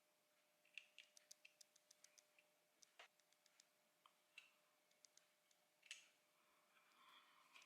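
Faint, irregular small clicks and taps, some in quick runs, with a sharper click about three seconds in and another near six seconds: small hard plastic parts being handled and snapped or moved.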